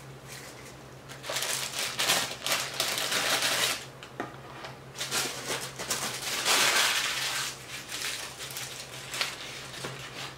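Close-up crinkling and crunching as a fast-food meal is started, in two long bursts of crackly noise.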